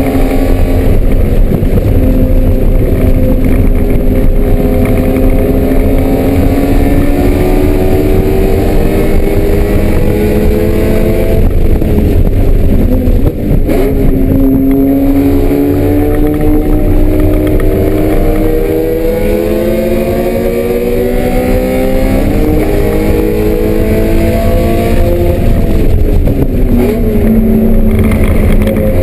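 BMW M3 race car engine running hard on a circuit. Its revs sweep up and down with throttle and gear changes, dropping sharply about 13 seconds in and again near the end.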